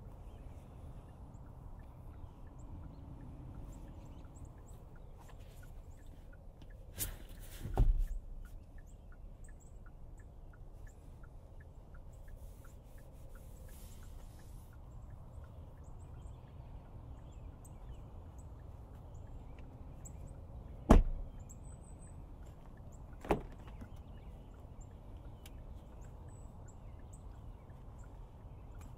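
Knocks and thumps from handling the car's interior and doors over a low steady background. There is a dull thump about eight seconds in, a sharp knock about two-thirds of the way through that is the loudest sound, and a smaller knock shortly after it.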